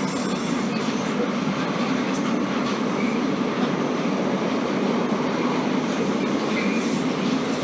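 Loaded double-deck car-transporter freight wagons rolling past, a steady noise of steel wheels running on the rails.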